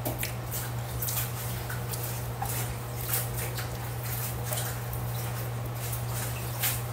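Close-up eating sounds of someone chewing boiled yam and peeling its skin with her fingers: scattered soft clicks and smacks over a steady low hum.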